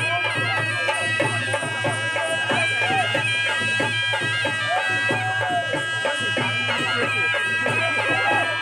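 Loud traditional festival music: a reedy, bagpipe-like pipe melody wavering over a steady held drone, with crowd voices underneath.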